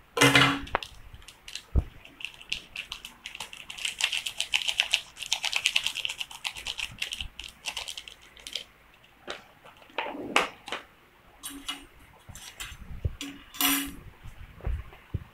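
Plastic seasoning sachets crinkling and crackling as they are snipped open with scissors and squeezed out over a paper noodle cup, a dense run of rustle and small clicks, with a few sharper handling sounds near the end.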